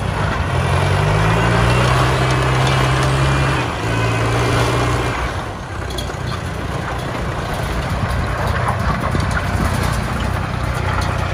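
Turbocharged diesel engine of a customized tracked rice tractor running under throttle as the machine drives and turns. The engine climbs about half a second in, holds, drops back around the middle, then slowly builds again.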